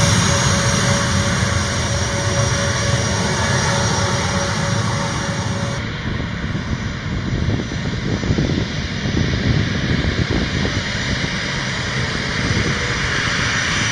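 A-10 Thunderbolt II's twin TF34 turbofan engines running as the jet taxis, a steady jet noise with a faint held tone. About six seconds in, the sound turns duller as its high end drops away.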